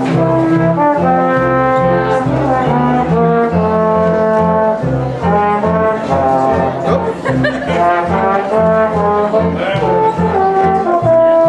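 A small live ensemble of strings and brass playing a waltz, the trombone carrying held melody notes over cello and double bass keeping a steady low beat.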